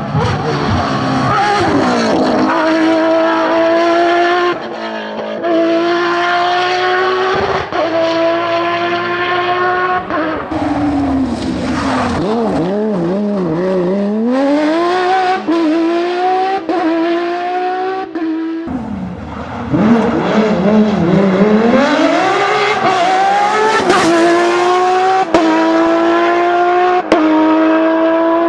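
Porsche 997 GT3 Cup's naturally aspirated flat-six racing engine at full throttle, its pitch climbing through the gears with a sudden drop at each upshift. Twice the revs fall away and climb back in a wavering curve as the car brakes, downshifts and accelerates out of a corner.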